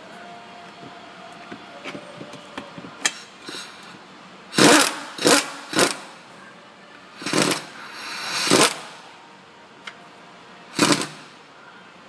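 Power ratchet running in about six short bursts, spinning the big lower through bolt of the front strut fork in to snug it into the lower control arm; a few light clicks of the parts being handled come first.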